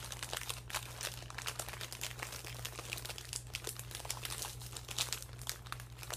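Snack bag crinkling as it is handled, a continuous irregular crackle of packaging, over a steady low hum.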